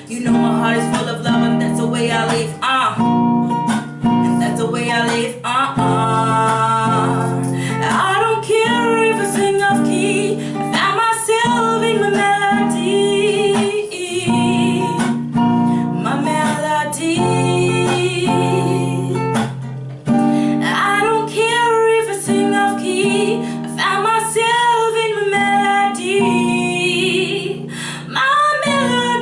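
Music: strummed acoustic guitar chords with a voice singing a melody over them.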